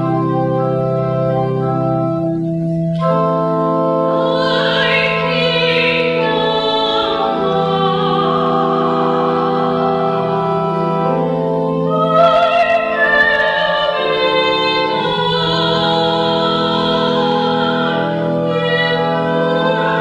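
A woman singing solo with a wide vibrato over sustained organ chords. The voice comes in about three seconds in and rises to its loudest phrase about twelve seconds in.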